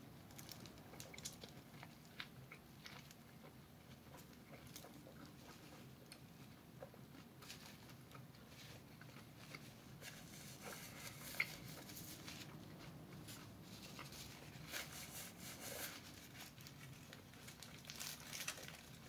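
Faint sounds of a man eating a burrito: bites and chewing, with scattered crinkles of its foil wrapper and one sharper click about eleven seconds in.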